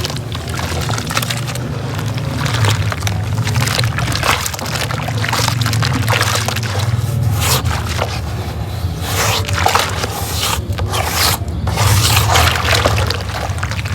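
Soft, slightly damp reused cement being crumbled by hand, a continuous run of small crunching crackles with a steady low rumble underneath.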